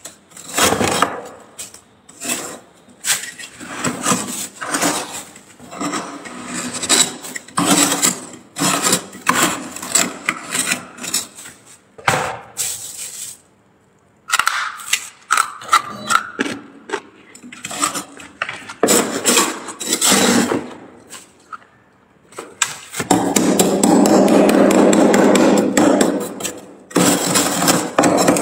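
Metal spoon scraping thick frost off the walls and shelves of a freezer compartment in quick, irregular strokes. There is a pause of about two seconds near the middle, and one long unbroken scrape about three-quarters through.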